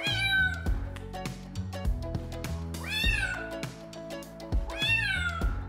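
Cat meowing three times, each a drawn-out call that rises and then falls in pitch: at the start, about three seconds in, and near the end. Background music with a steady beat plays throughout.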